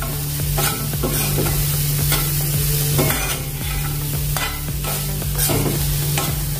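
Spiced bitter gourd pieces frying in oil in a pan, stirred with repeated scraping strokes at uneven intervals over a steady sizzle.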